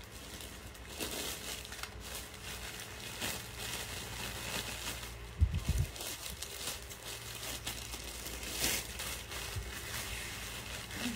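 Handling noises: scattered faint clicks and scrapes, with a dull low thump about five and a half seconds in.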